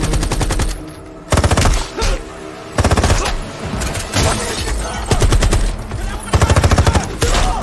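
Bursts of automatic rifle fire, rapid shots in repeated bursts a second or so apart, with film score underneath.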